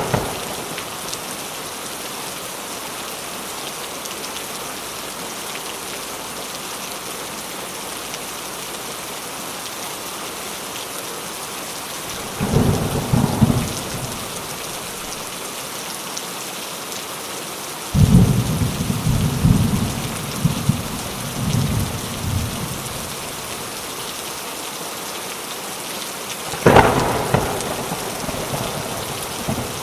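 Steady rain with thunder: a rumble about halfway through, a longer rolling rumble a few seconds later, and a sharp thunderclap near the end that dies away.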